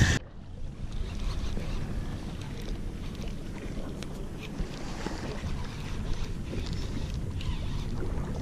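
Steady low rumble of wind buffeting the microphone on an open boat over the water, with a few faint ticks.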